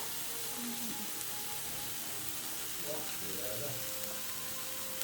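Food sizzling on a hot tabletop shabu-shabu grill plate: a steady frying hiss.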